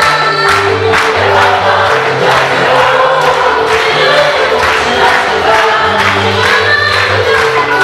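Choir singing an African gospel song over a band, with a steady drum beat and a moving bass line.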